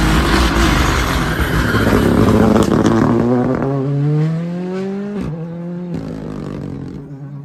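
Rally car passing close at speed, then accelerating away: its engine note climbs in pitch and breaks briefly at a gear change about five seconds in, then climbs again as it fades.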